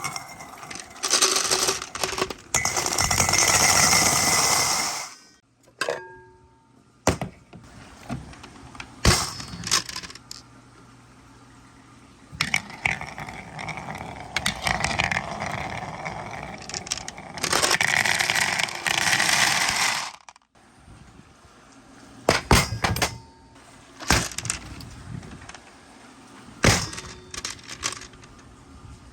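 Marbles rolling down a marble run: two long stretches of rushing rolling noise, the first about a second in and the second midway, with many sharp clicks and clinks as the marbles knock against each other and the track.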